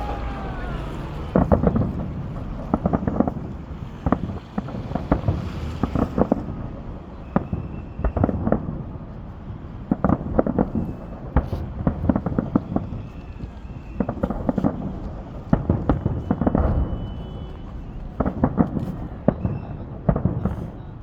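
Fireworks salute: a rapid, irregular run of shell bursts booming and cracking, often several in quick succession.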